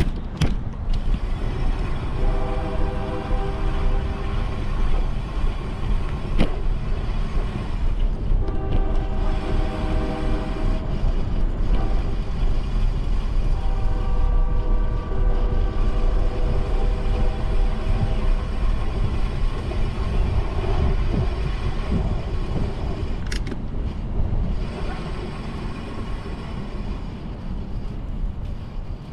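A train horn sounding three long blasts of a steady multi-note chord, each two to three seconds long, spaced a few seconds apart. Underneath is a steady low rumble of wind noise from riding.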